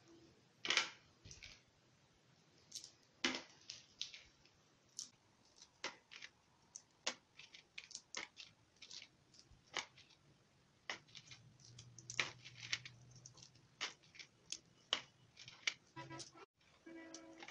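Dried anchovies crackling and snapping as their heads are pinched off by hand, in irregular sharp clicks, with light taps as the fish drop into a plastic tray.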